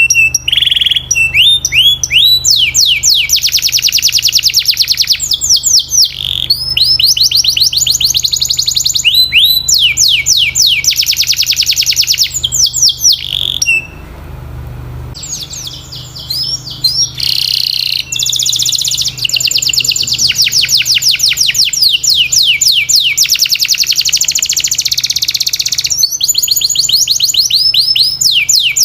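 Domestic canary singing: fast rolling trills of rapidly repeated sweeping notes, phrase after phrase, with a short pause about halfway through.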